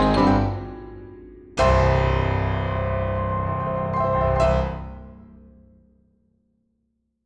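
Background piano music: a loud sustained chord about one and a half seconds in, another struck near the end, then the sound rings out and fades to silence.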